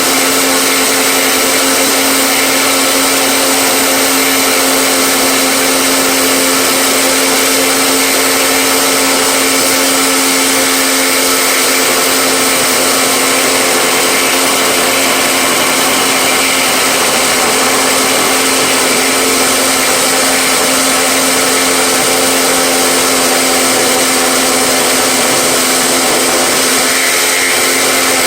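Electric motor of a workshop power tool running continuously at steady speed: a loud, even whine with a rushing hiss, unchanging throughout.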